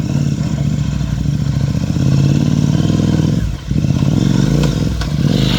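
Motorcycle engine running at low speed, its pitch rising and falling with the throttle, easing off briefly about three and a half seconds in.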